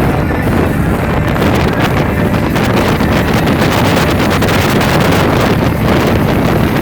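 Speedboat running at speed, its engine noise and rushing air blended into a loud, steady roar with heavy wind buffeting on the microphone.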